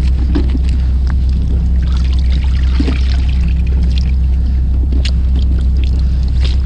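A fishing boat's engine runs with a steady low drone. Water trickles from a hose into a plastic tray, and plastic bags crinkle in the hands now and then.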